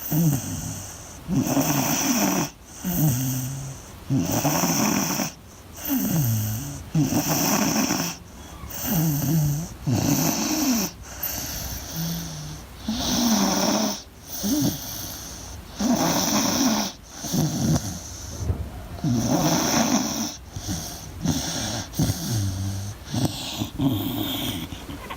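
Beagle snoring in its sleep, a rough snore on each breath in and out, in an even rhythm of about one every second and a half.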